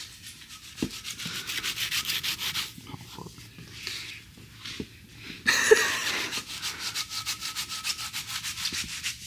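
Fast, even rubbing or scratching strokes, several a second, louder and brighter from a little past halfway.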